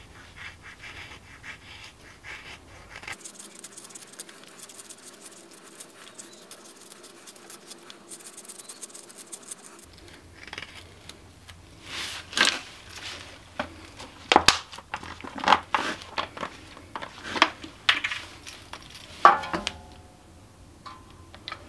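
Dry kindling being worked with a knife on a concrete floor: faint scraping and cutting, then a run of sharp cracks as the sticks split. Near the end comes a short gurgle of white spirit poured from a plastic bottle onto the wood.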